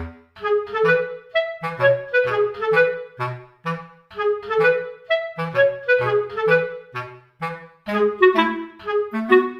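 Light, bouncy background music of short, separate notes over a simple bass line, about two to three notes a second.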